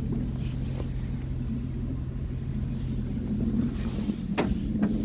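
Scania R tractor unit's diesel engine idling steadily, heard from inside the cab, with a couple of light clicks near the end.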